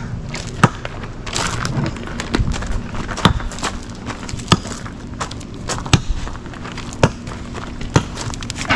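Wood campfire crackling, with sharp irregular pops about once or twice a second over a low hiss.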